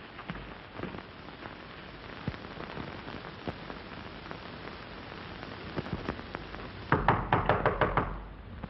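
Steady hiss and crackle of an old film soundtrack, with a quick run of sharp knocks or clicks about seven seconds in.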